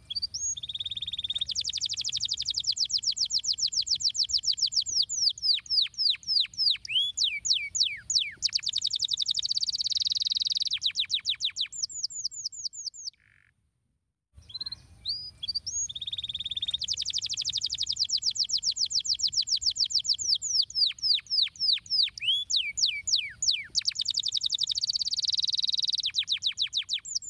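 Domestic canary singing a long song of fast rolling trills and quick downward-sweeping notes, over a faint low background rumble. The same phrase of about thirteen seconds is heard twice, with a brief silence between.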